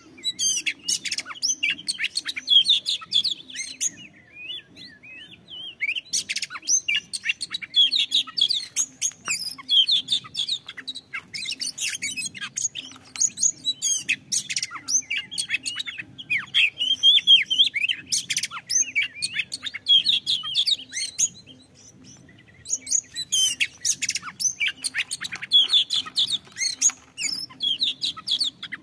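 Oriental magpie-robin singing a loud, fast, varied song of sharp sweeping whistles and harsh clicking notes, in long phrases with a couple of short breaks.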